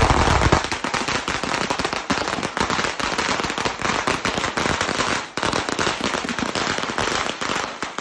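Fireworks going off close by: a dense, rapid run of pops and bangs that starts suddenly and keeps on, with a brief break about five seconds in.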